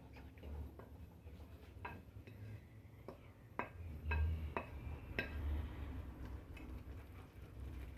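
A wooden spoon scraping shredded chicken off a ceramic plate into a metal saucepan, with a handful of light knocks and clinks of spoon on plate and pan rim over a low rumble.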